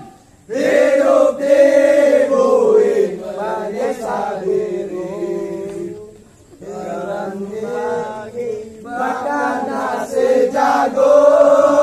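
A group of men chant a Scout yell (yel-yel) in unison, half-sung to a tune. There is a short break about six seconds in before the chant resumes.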